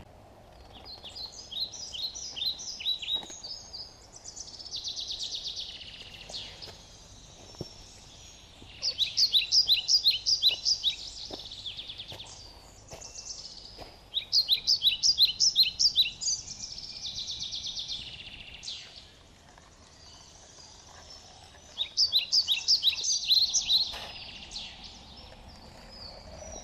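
A songbird singing: several phrases of quick high notes repeated in a fast run, each lasting two or three seconds, with buzzier trills between them.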